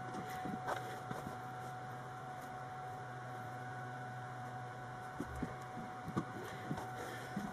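Soft rustles and light knocks of skirt fabric being handled, folded and pressed at the hem, over a steady low background hum.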